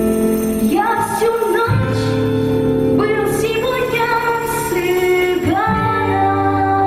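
Romani (Gypsy) ensemble music: a held, sliding melody line over a steady low accompaniment.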